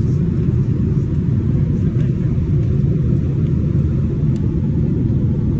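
Airliner cabin noise in flight: the steady low rumble of the engines and airflow heard from inside the passenger cabin.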